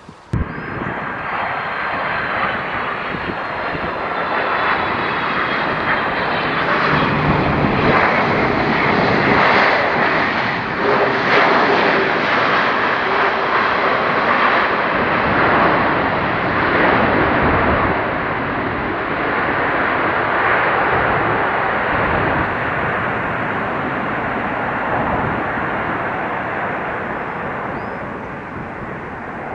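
Jet airliner engines passing by: a loud roar that builds over about ten seconds, peaks, then slowly fades, with a faint high whine dropping slightly in pitch near the start.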